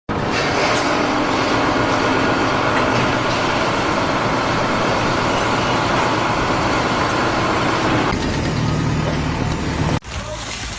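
Loud, steady motor-vehicle noise that starts abruptly, takes on a steadier low hum about eight seconds in, and cuts off suddenly near the end.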